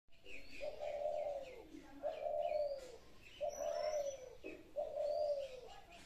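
Dove cooing: four long coos about a second and a half apart, each holding its pitch and then dropping off at the end. Small birds chirp high above them.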